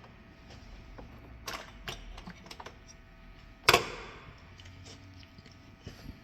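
Hood latch parts being handled: a few light clicks and rattles, and one sharp, loud click about three and a half seconds in.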